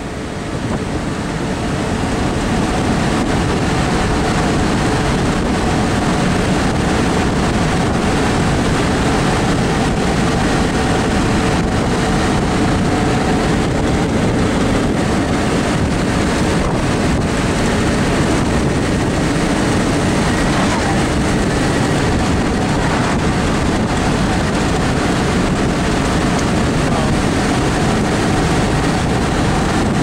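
Wind rushing over an open convertible and buffeting the microphone, with the 1955 Ford Thunderbird's V8 running steadily underneath at highway cruising speed.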